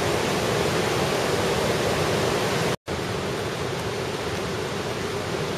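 Steady rush of the Stuibenfall waterfall. It breaks off briefly a little before the middle and then carries on slightly quieter.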